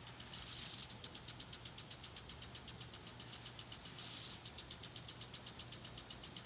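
Impact sprinkler ticking rapidly and evenly as its arm drives the jet around, with a brief louder hiss of spray twice.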